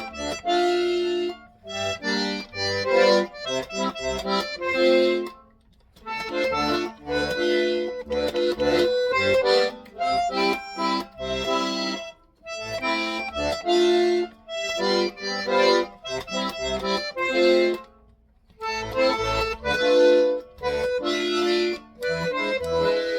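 Accordion playing a melody with chords, in phrases of several seconds, each broken off by a short pause before the next.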